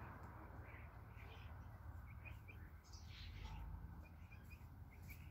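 Faint short bird chirps, a few scattered and a quick cluster near the end, over a low steady background hum.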